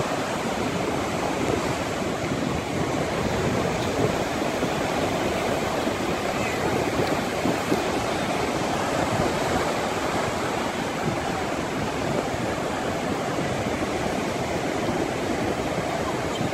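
Ocean surf breaking and washing ashore in a steady, unbroken rush of water noise.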